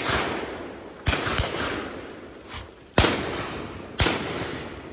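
Shotguns firing at driven ducks: four loud shots, near the start and at about one, three and four seconds in, each trailing a long fading echo, with fainter, more distant shots between them.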